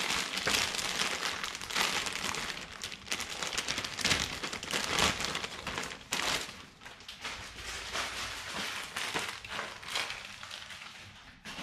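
Clear plastic packaging bag crinkling and rustling in the hands as a headlight bezel is unwrapped from it, dying down near the end.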